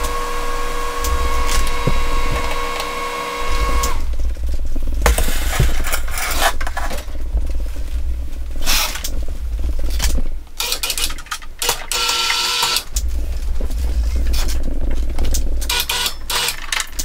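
Power wheelchair's electric drive motors whining as the chair is driven and turned. The whine is steady for about the first four seconds, then comes in uneven stop-start spurts over a low rumble.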